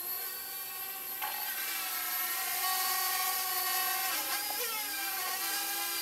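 Parrot Bebop quadcopter's rotors whining in flight, a steady whine of several tones together. Near the end the pitch dips and rises again.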